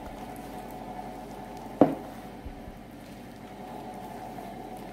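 A hand mixing and squeezing flour dough in a plastic bowl, with soft squishing and rubbing and one sharp knock a little under two seconds in, over a faint steady hum.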